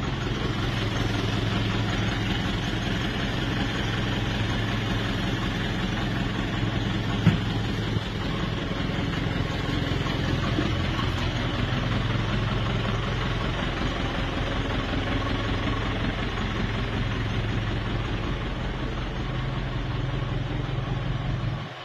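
Coach bus engine idling steadily, with a single sharp knock about seven seconds in.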